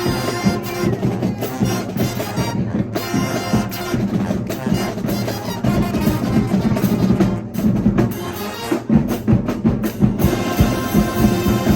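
College marching band playing: brass section sounding sustained chords over a drumline with a steady bass-drum beat.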